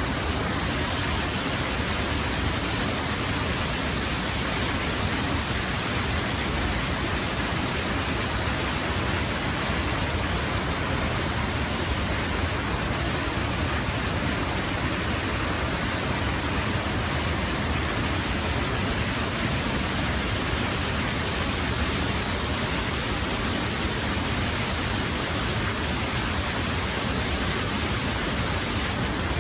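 Waterfall pouring into a pool: a steady, unchanging rush of falling water.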